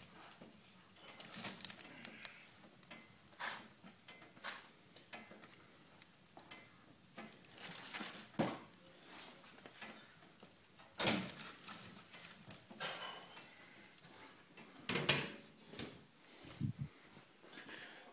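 Scattered faint clicks and knocks at irregular intervals, with a few louder clatters about eight, eleven and fifteen seconds in.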